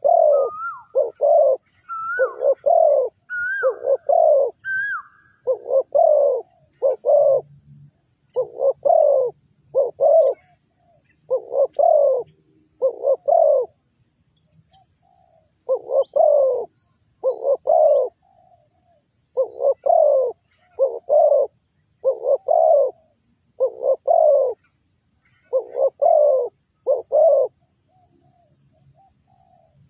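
Spotted dove cooing repeatedly in short phrases of two or three notes, the phrases following one after another and stopping near the end. Faint high chirps of small birds sound behind it.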